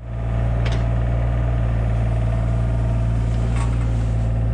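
Hitachi 35U mini excavator's diesel engine running steadily with a deep hum, cutting in abruptly, with a light knock about a second in and another near the end.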